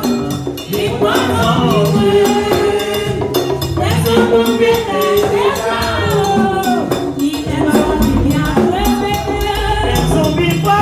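A Haitian rasin band playing live: a chorus of women's voices sings over hand drums and other percussion.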